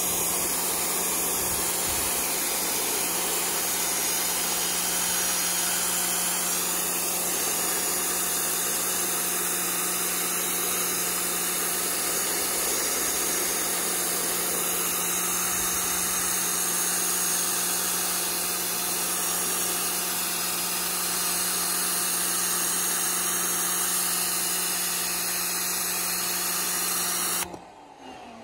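Pressure washer running steadily, its high-pressure jet hissing against a canoe hull over a constant motor hum. It cuts off suddenly near the end.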